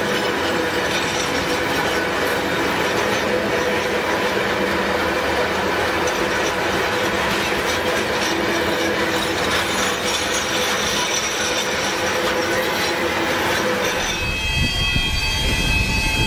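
Iron ore freight train's open hopper wagons rolling past at speed: a steady loud rumble and rattle of steel wheels on the rails, with a high ringing squeal from the wheels. About two seconds before the end the sound shifts to a deeper, heavier rumble.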